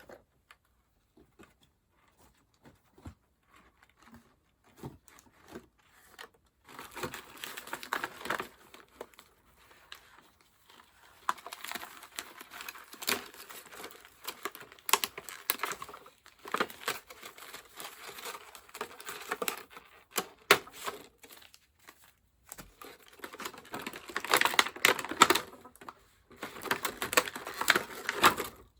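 Plastic and foil packaging crinkling and tearing as a doll box is unwrapped by hand. It comes in irregular stretches of crackling with sharp clicks, after a few seconds of only scattered faint clicks.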